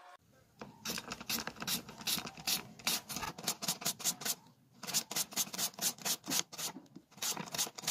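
Handheld peeler rasping down a raw potato in quick repeated strokes, about three a second, shaving it into thin pieces, with short pauses about four and a half and seven seconds in.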